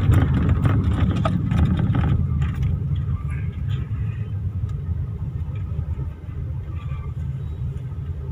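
Low, steady rumble of a car driving slowly, heard from inside the cabin: engine and tyre noise that gradually grows quieter.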